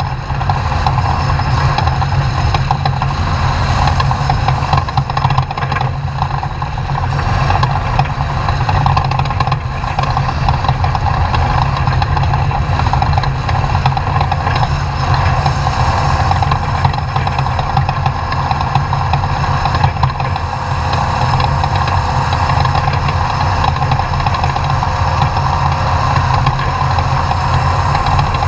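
Off-road race truck's engine running steadily, with a constant loud low drone and no clear rises or falls in pitch.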